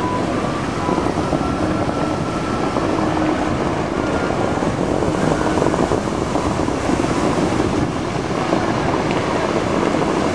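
Steady rushing of the Bellagio fountain's water jets and spray, mixed with wind buffeting the microphone. Music plays faintly underneath.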